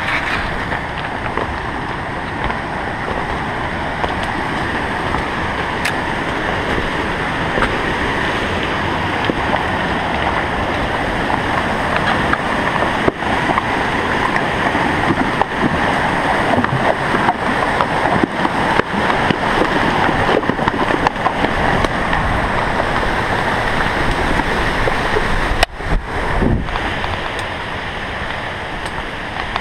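Steady, loud rushing of a mountain creek's fast water, with a brief dip near the end.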